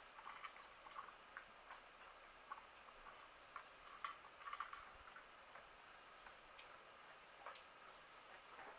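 Near silence with faint, irregular ticks and clicks scattered through it, a little busier around the middle.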